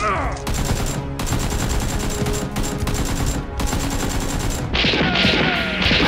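Rapid automatic-gunfire sound effects, the realistic kind dubbed over a Nerf blaster fight, with background music underneath. From about five seconds in there is a louder burst of shots striking brickwork, with falling ricochet whines.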